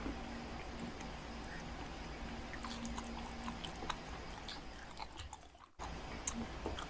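A person chewing a mouthful of burger close to the microphone, with small wet clicks of the mouth; the sound briefly cuts out about five and a half seconds in.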